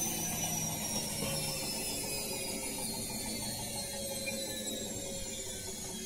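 Bosch Maxx 7 VarioPerfect washing machine running in its spin, its motor and drum giving a steady whine that slowly falls in pitch as the drum slows.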